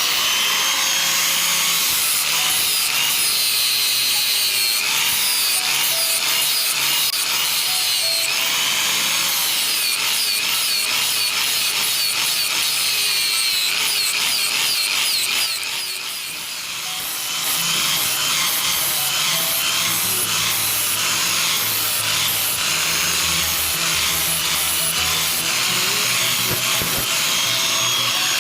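A steel knife blade made from an old saw being ground or sharpened: a loud, harsh, continuous scraping of metal with many quick strokes, easing off briefly about halfway through.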